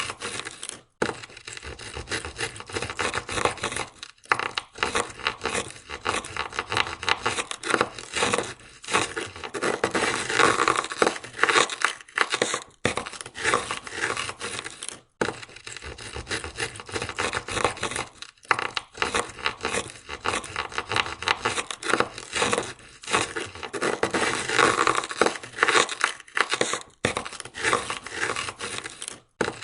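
Ice scraper scraping ice off a car window in quick repeated rasping strokes, with a few brief pauses between runs of strokes.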